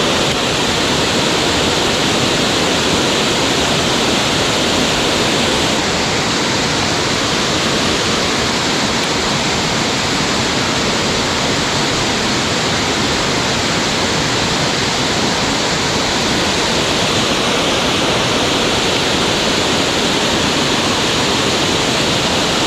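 Loud, steady rush of water from a waterfall.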